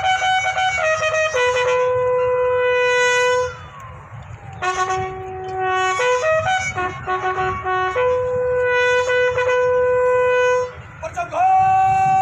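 Military bugle sounding a flag-lowering call: long held notes that step down to lower notes, in phrases with short breaks between them.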